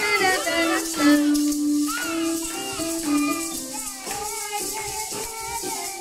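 Several maracas shaken together in time with a tune, a melody with long held notes over the rattling.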